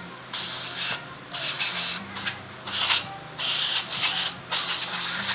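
A series of about six short hissing, rubbing bursts of work on the scooter's tyre or wheel, each lasting under a second, over background music.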